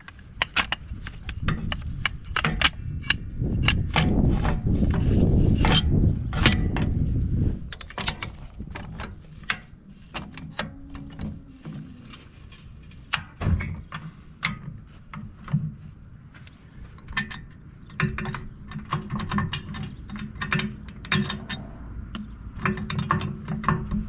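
Ratchet wrench clicking and metal tools knocking against steel as the bolts holding a packer's bearing housing are worked loose. A louder low rumble runs for a few seconds near the start.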